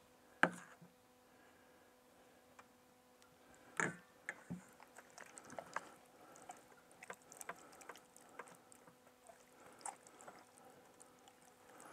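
Hands massaging a wet marinade into a raw whole chicken: soft squelching and small scattered ticks. There is a sharp knock about half a second in and another near four seconds.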